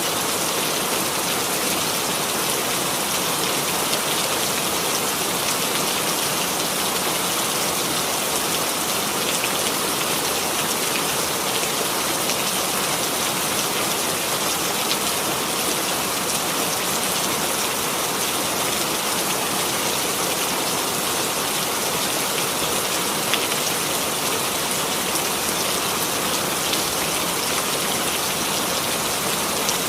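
Steady rainfall, a dense even hiss of raindrops falling on a surface with fine scattered drop ticks.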